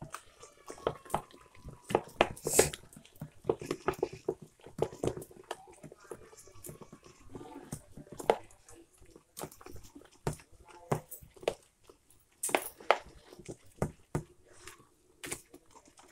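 A hand mixing thick gram-flour (besan) batter in a steel bowl: irregular wet slaps and squelches, several a second, with some sharper clicks among them.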